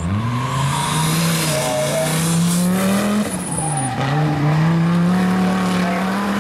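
Audi quattro rally car's turbocharged five-cylinder engine pulling hard, the revs climbing for about three seconds, dropping sharply at a lift or gear change, then climbing again.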